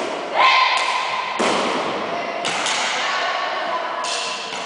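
Badminton play on a wooden gym floor: several sharp hits of racket on shuttlecock and feet on the floor, about a second apart, with a brief high squeak of shoes on the boards about half a second in.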